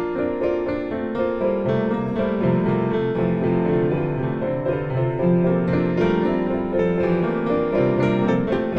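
Background instrumental music with a piano melody, played steadily.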